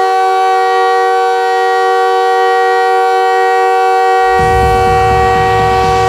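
Montreal Canadiens' goal horn sounding one long, steady chord of several notes. About four seconds in, a low beat of the goal music comes in under it.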